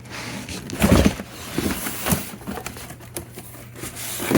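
Handling noise: rustling with dull thumps about a second in, about two seconds in and at the end, over a steady low hum.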